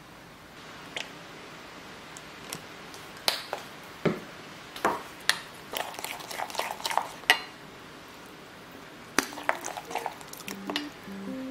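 Utensils clinking and knocking against dishes and bowls: a run of separate clinks and taps, a few ringing briefly. Music notes come in near the end.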